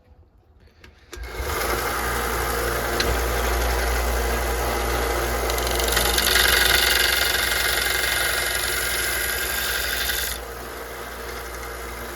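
Belt grinder switching on about a second in and running steadily with a low hum and a belt hiss. In the middle the hiss grows louder as steel is ground against the belt, then eases off at about ten seconds while the motor keeps running.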